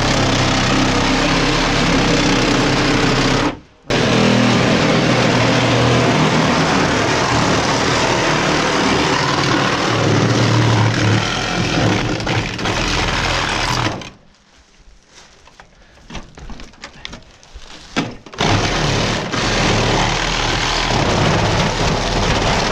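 Power tool cutting through sheet metal in a loud, steady run. It cuts off for a moment a few seconds in and starts again. About two-thirds of the way through it stops, leaving scattered clanks and knocks, then runs again briefly near the end.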